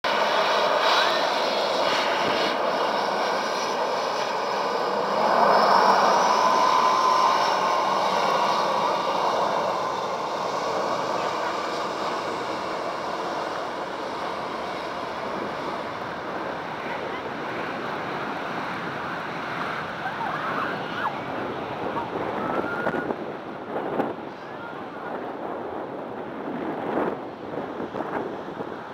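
Jet engines of a Boeing 737 airliner running at takeoff power, a steady rush with a whine that is loudest about six seconds in and then slowly fades as the jet rolls away down the runway. Gusts of wind hit the microphone near the end.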